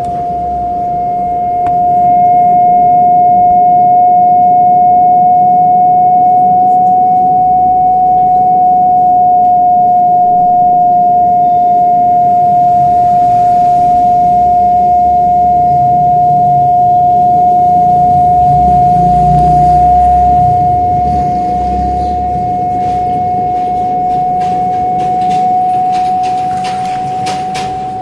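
Home theatre speaker giving out a loud, steady whistle: one unchanging high tone over a low hum, the 'train whistle' fault of a home theatre amplifier. A few clicks near the end.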